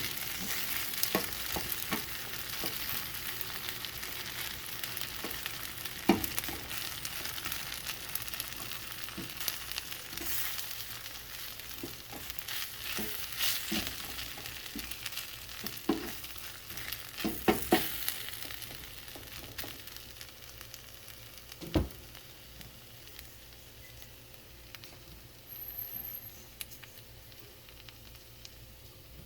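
Food sizzling in a frying pan as it is stirred, with occasional sharp knocks of a utensil against the pan; the sizzling dies down over the last several seconds.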